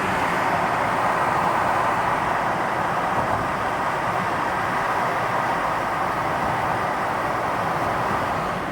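Steady, even rushing noise of a vehicle on the move.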